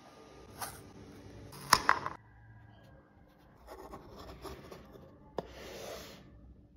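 A 3D-printed plastic part being handled on the printer's build sheet and a cutting mat: rubbing and scraping with a few sharp clicks, the loudest pair about two seconds in, and a brief rubbing hiss near the end.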